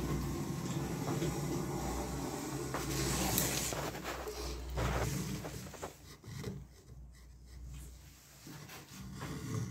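Rubbing and scraping of a caulking gun's sealant nozzle drawn along the joint between a PVC window frame and its sill, with a few short clicks, over a low steady rumble. It goes quieter about two-thirds of the way through.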